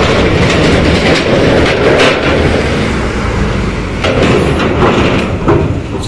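Intercity bus driving past close by with its engine running, loud and steady, with many short clattering knocks throughout.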